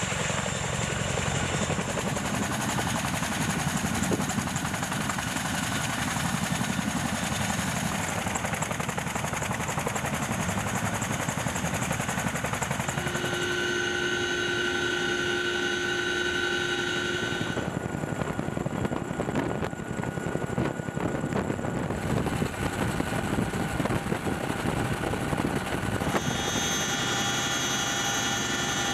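CH-47 Chinook tandem-rotor helicopter running at a hover, its rotors and turbine engines making a loud, continuous noise. For a few seconds in the middle, a high steady whine stands out over it.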